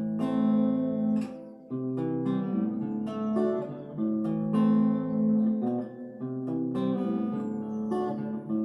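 Epiphone Lil Tex travel acoustic-electric guitar played through its passive piezo pickup into an amp with a little reverb. Chords are picked and strummed and left to ring, with a new chord every second or so.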